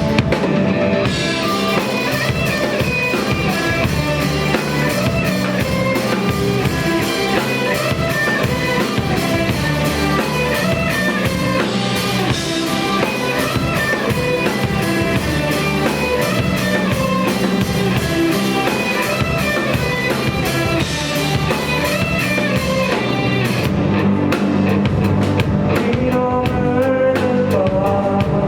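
Rock band playing live: electric guitar over a drum kit, loud and continuous, thinning out in the treble for a few seconds near the end.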